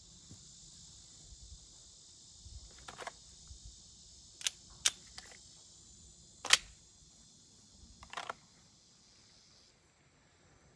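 A handful of sharp pistol cracks, irregularly spaced, the fourth much the loudest, over a steady high chirring of insects that stops near the end.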